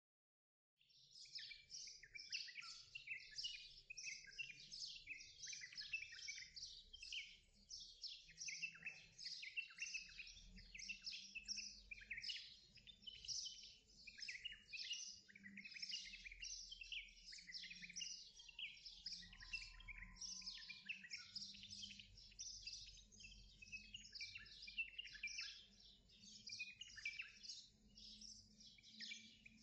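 A dense chorus of small birds chirping and twittering continuously, faint, starting about a second in after dead silence.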